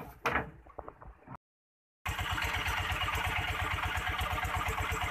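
Boat engine running steadily with a fast, even low pulse, under a hiss of wind and water as the boat moves through rough sea. It starts after a short dead gap about two seconds in; before that come a few brief splashes.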